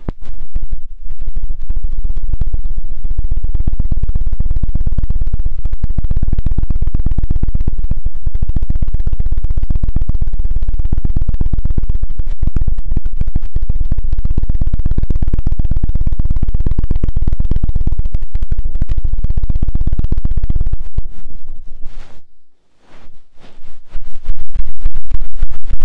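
Fast, dense scratching and rubbing right on an ASMR microphone, loud and heavy in the low end. It breaks off for about a second a little after 22 seconds in, then starts again.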